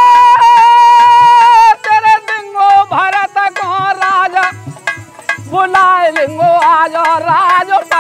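A man sings a Hindi devotional folk song (bhajan) at full voice. He holds one long high note for nearly two seconds, then breaks into an ornamented, wavering line, with dholak strokes beneath.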